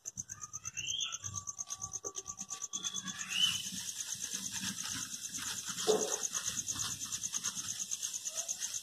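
Crickets chirping in a steady, fast-pulsing high trill that grows stronger partway through, over faint low rustling.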